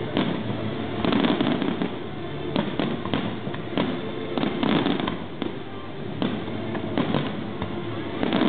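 Aerial fireworks shells bursting one after another in an irregular run of overlapping bangs, with no break.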